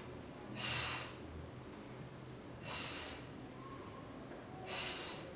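A woman's breaths during bodyweight squats: three short, hissing breaths about two seconds apart, one with each squat.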